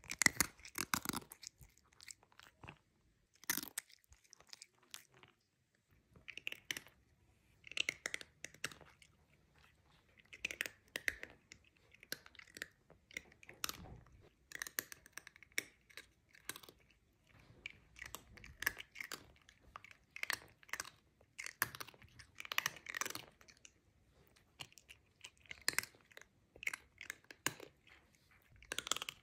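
A cat crunching and chewing crunchy food close to the microphone, in bouts of crackling crunches about a second long with short pauses between.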